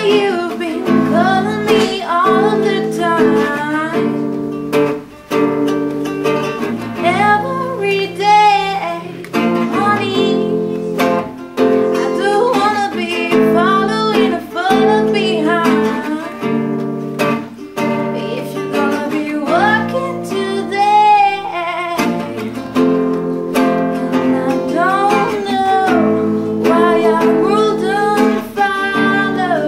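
A classical nylon-string guitar played under a voice singing a song.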